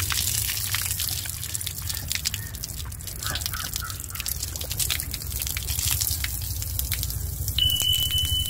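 Water gushing and splattering from the open end of a PVC pipe under supply pressure, spraying against a hand and a cloth held over the flow. Near the end a short, steady high-pitched tone sounds over the water.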